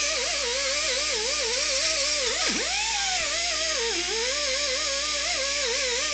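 A high-speed power tool whining steadily, its pitch wavering quickly and dipping sharply twice as it is pressed into the work and loaded.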